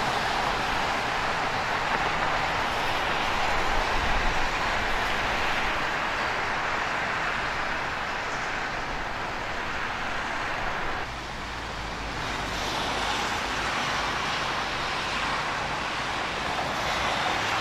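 Steady hiss of rain and of car tyres on a wet freeway, with traffic passing. About eleven seconds in, the sound drops briefly and changes to heavy rainfall heard closer.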